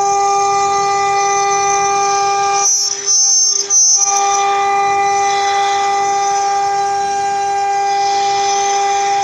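CNC router spindle running with a steady high-pitched whine. About three seconds in, the whine drops out for roughly a second under a louder burst of noise.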